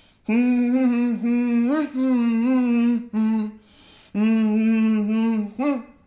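A person humming a song's melody with closed lips and no words, in wordless 'mm' tones held on fairly steady notes. There are two long phrases, the first with a small upward slide, each followed by a short note, and a brief pause a little past halfway.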